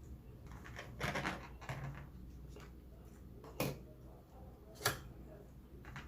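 Close-up eating sounds: a few short crunchy clicks and smacks from chewing and handling the food, spaced irregularly, the sharpest one near the end.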